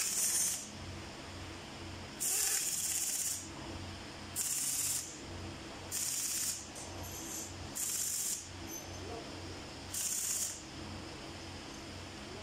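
Compressed air hissing from a handheld air tool in about six short bursts, each half a second to a second long, a second or two apart. A faint steady low hum runs underneath.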